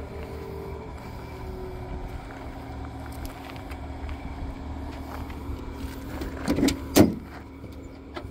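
Driver's door of a 1973 Ford Ranchero being opened: two short metal clunks about six and a half and seven seconds in, the second the loudest, over a steady low rumble.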